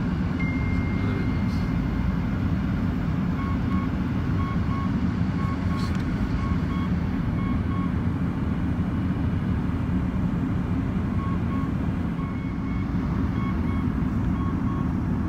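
Steady low vehicle rumble, with faint repeated electronic beeping around the middle and again near the end.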